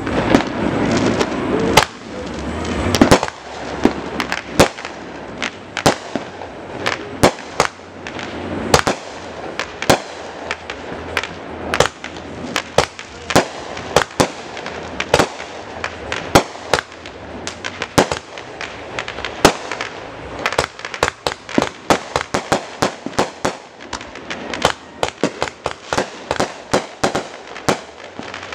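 Aerial fireworks bursting: a long run of sharp bangs, irregular and coming several a second at times, crowding closer together in the second half, over a continuous crackling wash.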